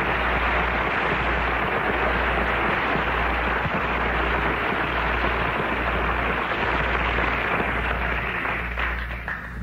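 Studio audience applauding, a steady clapping that dies away near the end.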